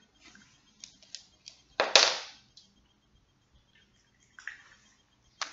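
Scattered light clicks and taps of a small dog's claws on a hardwood floor, with one louder brushing thump about two seconds in and a few faint taps near the end.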